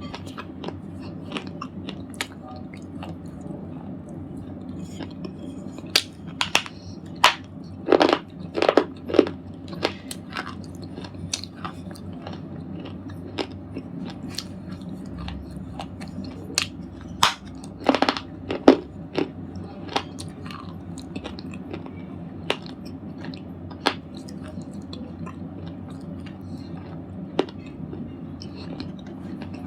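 A red slate ball with black grooves being crunched. There are scattered sharp crunches, with two dense runs of louder cracks about six to ten seconds in and again around eighteen seconds.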